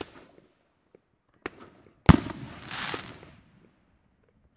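Stick rocket firework bursting high in the air: a faint pop, then a single sharp bang about two seconds in, followed by a short hiss as the burst spreads.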